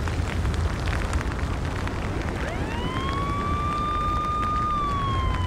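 Deep continuous rumble with scattered crackles early on, under a descending pyroclastic flow. About halfway in a siren starts, rising quickly into a wail, holding, then slowly falling near the end.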